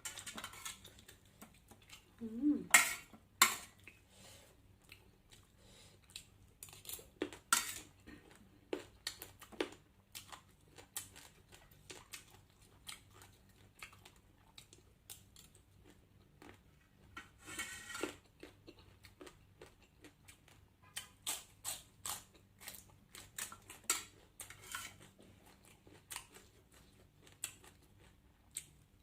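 Eating sounds: utensils clicking and scraping against dishes in short, irregular clatters, with soft chewing in between.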